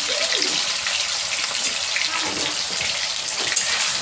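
Paneer cubes frying in hot oil in a steel kadhai: a steady sizzle with small crackles.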